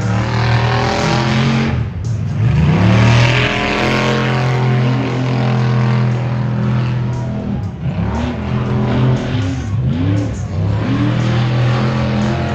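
Pro-class tuff truck's engine racing at high revs across the dirt course, its pitch rising and falling several times as the throttle is worked.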